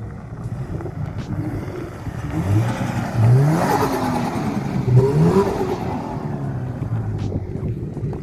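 A Subaru accelerating hard past, its engine note climbing twice about two seconds apart as it pulls up through the gears, with the engine and tyre noise loudest as it goes by in the middle.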